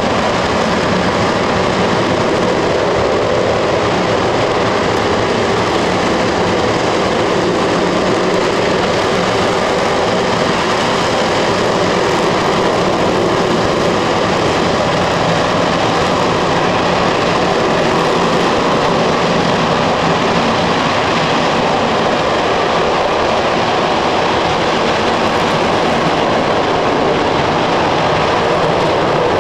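RS-25 liquid-fuel rocket engine in a static test firing: a loud, steady, unbroken rush of noise that holds the same level throughout.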